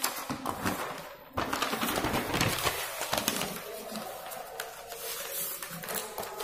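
Sheets of notebook paper rustling and crackling as a page is turned and handled, loudest for a couple of seconds after about a second in.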